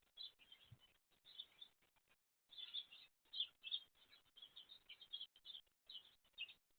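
Faint birds chirping: many short calls in quick succession, with brief gaps between them.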